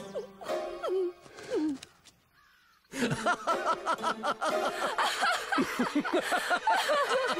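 Cartoon characters laughing: a short vocal sound, a brief pause, then from about three seconds in several voices laughing together over music.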